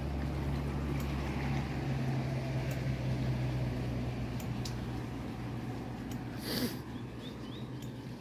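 Mountain bike rolling over a wet sandy trail, its tyres and frame giving off scattered clicks and rattles over a low steady hum that weakens about halfway. A brief sharp rush of noise comes about six and a half seconds in.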